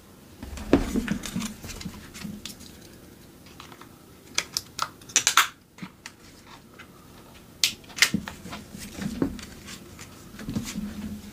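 Handling noise: scattered sharp clicks, taps and light knocks of objects being moved about, with a quick run of clicks about four to five seconds in and a few soft thuds.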